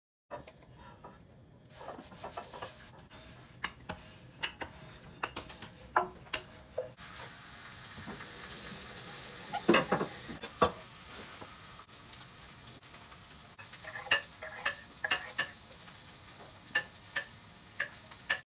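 A kitchen knife cutting rolled dumpling dough on a marble pastry board, its blade tapping and scraping the stone in scattered sharp clicks, along with hands pressing and handling the dough. A steady hiss comes in about seven seconds in.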